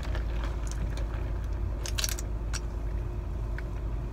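Steady low hum inside a car cabin, with a few short clicks and rustles from a large plastic drink cup being handled.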